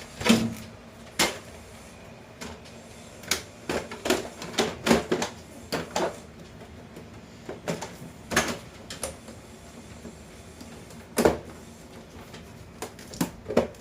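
Irregular clicks and knocks of hard parts being handled, with a few louder knocks spread through and softer ticks between them.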